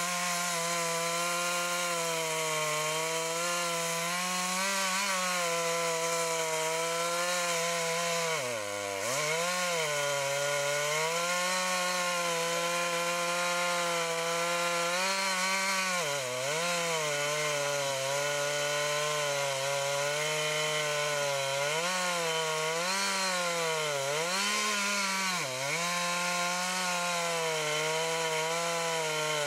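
Large red Jonsered two-stroke chainsaw running at full throttle, cutting into a thick tree trunk. The engine note sags briefly under load about eight seconds in, again around sixteen seconds and near the end, and recovers each time.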